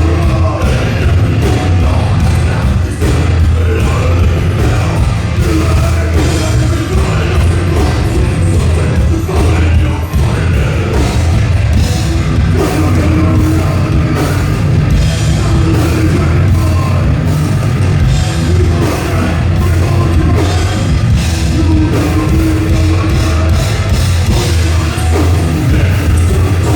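Live thrash metal band playing: distorted electric guitars, bass and fast drum kit at full volume, with some vocals.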